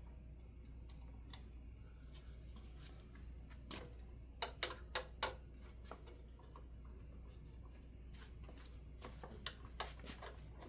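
Light metal clicks and clinks as a brass ceiling fan canopy is fitted onto its mounting bracket: a quick run of four about halfway through and a few more near the end, over a steady low hum.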